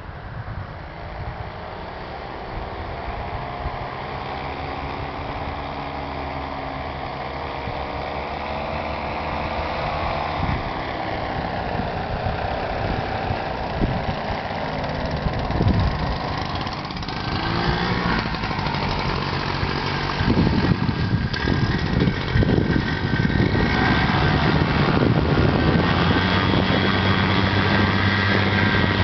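Paramotor engine of a powered paraglider flying past low, its drone growing steadily louder as it nears and its pitch drifting up and down. In the second half, low buffeting on the microphone mixes in, and near the end the engine settles to a steady hum.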